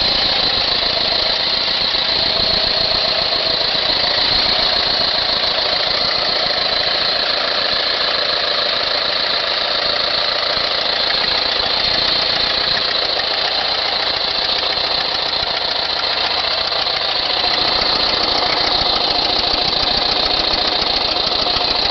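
1979 Volkswagen Type 2 bus's air-cooled flat-four engine running steadily after an oil change.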